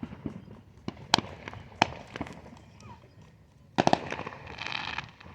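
Fireworks going off: a few separate sharp bangs, then a quick cluster of cracks about four seconds in, followed by about a second of noisy rush.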